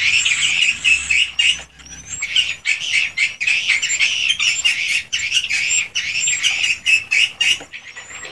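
A crowd of swiftlets chirping and twittering in dense overlapping calls, mixed with rapid sharp clicks and short rising whistles, with brief lulls about two seconds in and near the end.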